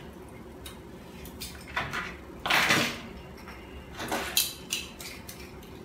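Fishing lures with treble hooks, and metal pliers, handled and set down on a table: a series of short sharp clicks and clatters, with a longer rattle about two and a half seconds in.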